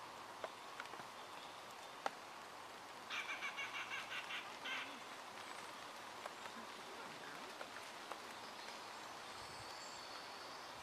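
A bird calling over quiet outdoor background: a quick run of about ten notes lasting under two seconds, about three seconds in, and later a thin high whistled note. Two sharp clicks near the start.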